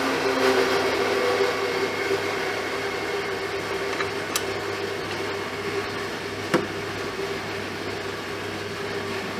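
A steady mechanical hum with a couple of short sharp clicks about halfway through.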